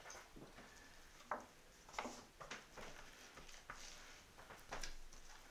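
Faint handling sounds of a knife and raw beef on a plastic cutting board as the meat is trimmed and shifted: a handful of soft, separate knocks and taps at an uneven pace.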